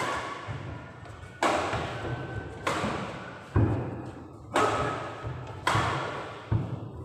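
Badminton rackets striking a shuttlecock back and forth in a doubles rally, seven sharp hits about one a second, each echoing in a large hall.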